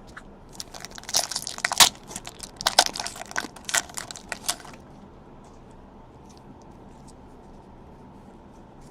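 Trading-card pack wrapper being torn open and crinkled: a dense run of crackling and tearing for about four seconds, then only a few faint handling ticks.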